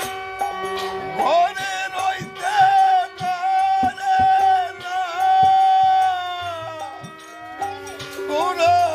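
Bengali devotional folk music (Hari sangeet): a lead melody slides up and holds long wavering notes over a steady drone, with scattered percussion strokes.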